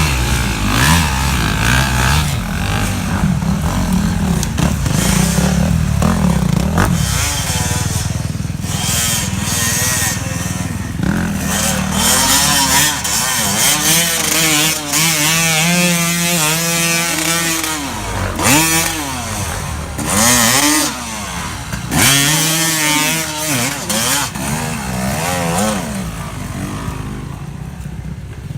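Off-road vehicle engine revving up and down over and over as it is driven, its pitch rising and falling in repeated swoops.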